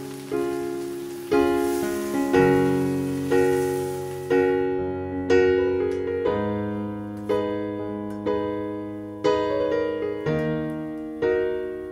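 Background piano music, soft chords struck about once a second and left to ring down. For the first four seconds a faint hiss of vegetables frying in butter in a pan lies under it, then cuts off.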